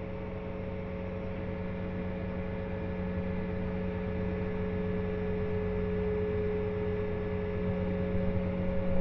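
Diesel farm machinery running steadily at constant engine speed, heard from inside a tractor cab: an even low hum with a couple of higher steady tones above it.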